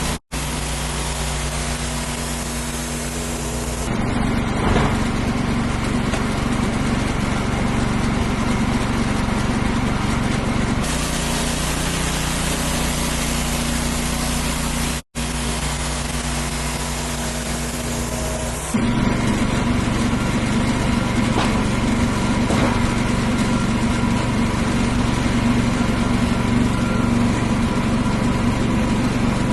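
Wood-Mizer portable band sawmill running steadily under power while sawing a black walnut log into boards. The sound changes abruptly a few times and drops out for an instant twice, once near the start and once about halfway through.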